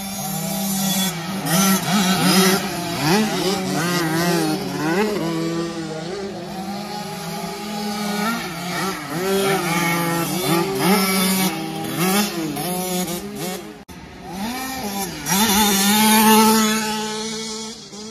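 Several 50cc two-stroke youth motocross bikes racing on the track, their engines revving up and down as they accelerate and shift. The sound breaks off briefly about 14 seconds in, then one engine revs loudly again.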